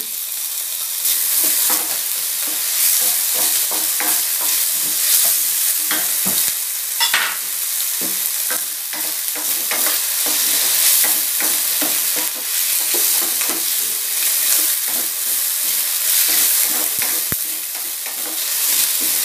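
Chopped ham and luncheon meat sizzling steadily in oil in a stainless steel frying pan, with a wooden spoon scraping and knocking against the pan many times as the meat is stirred.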